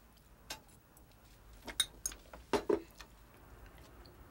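A few light, irregularly spaced clicks and clinks of small hard objects being handled, the strongest between about two and three seconds in.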